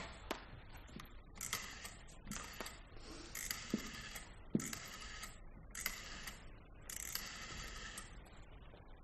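Rotary telephone dial being turned and whirring back, about six times in a row, as a phone number is dialled.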